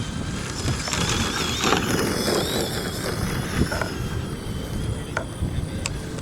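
Electric motor of a Horizon Hobby AMP MT 2WD RC truck whining, its pitch wavering up and down with the throttle, over a low rumble and a few sharp clicks.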